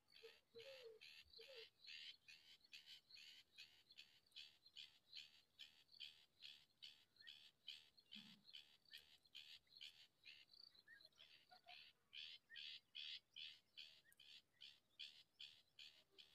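Faint nestlings' begging calls: short high chirps repeated quickly and evenly, about three a second, with a brief pause past the middle. A few low, short notes sound in the first couple of seconds.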